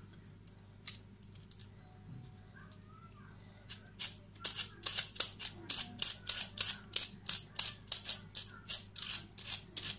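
Pumpkin being peeled with a hand-held multi-purpose peeler: after a few light clicks, quick scraping strokes of the blade across the firm rind start about four seconds in and repeat about three to four times a second.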